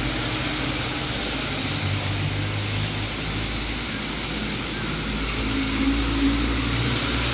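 Road traffic on a wet road: a steady hum of car engines under an even hiss of tyres.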